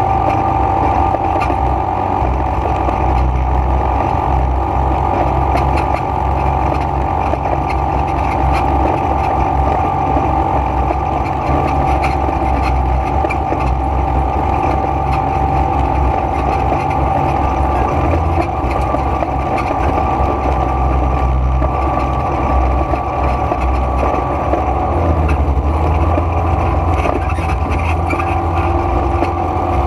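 ATV (quad bike) engine running steadily at cruising speed, heard from on board, with a steady high whine over a rough low rumble.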